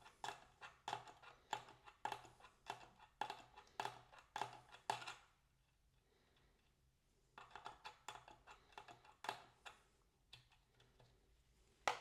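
Light metallic clicks, about two a second, of a spanner working the nut on the throttle cable adjuster in short strokes; they stop for about two seconds midway, then carry on.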